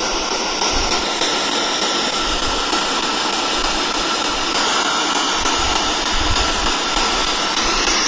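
Steady, loud hiss with a faint high tone running through it, with no change or break.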